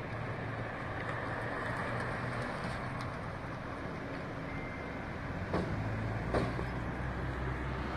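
Fire engine's engine idling steadily beside a burning car, with two sharp cracks a little after the middle.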